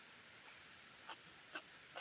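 Near silence with a few faint, short mouth clicks, about four, from someone chewing a mouthful of beef noodle soup.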